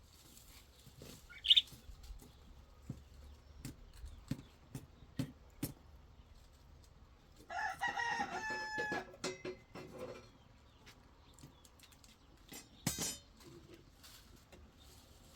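A rooster crows once, about halfway through: a single drawn-out call lasting about a second and a half. A short, sharp high chirp comes about a second and a half in, with scattered light clicks and knocks and a brief noisy rustle near the end.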